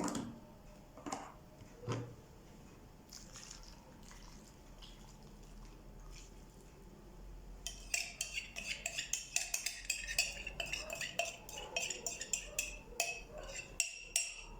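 Kitchen clatter of dishes and utensils: a couple of knocks near the start, then after a quieter stretch, several seconds of rapid light clinks and clattering.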